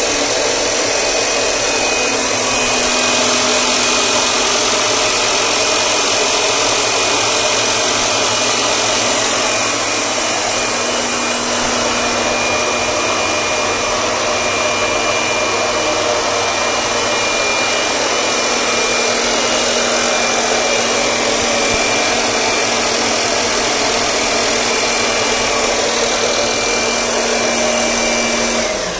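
Small electric air blower running steadily, a rush of air with a motor whine, blowing through a silencer pipe onto a plastic fan that spins a dynamo. It is switched off near the end, and the whine drops in pitch as it dies away.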